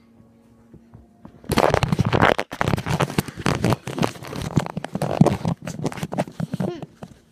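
Loud rustling, scraping and knocking of handling noise on a phone's microphone as the phone is grabbed and swung about, starting about a second and a half in and stopping just before the end.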